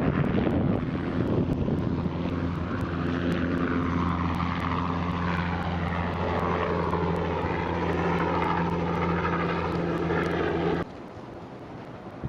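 Helicopter flying overhead: a steady engine and rotor drone with slowly shifting higher tones. It cuts off abruptly near the end.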